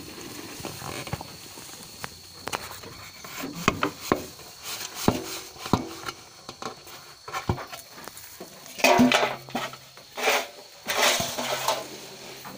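Scattered knocks and taps against a wooden feed trough, then loud rustling from about nine seconds in as chopped grass feed is dumped and spread in it by hand.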